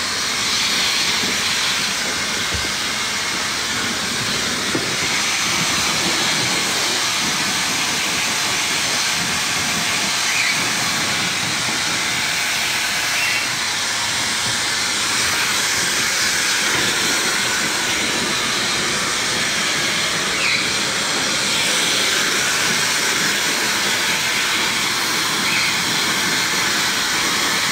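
Hair dryer blowing with a steady rushing hiss.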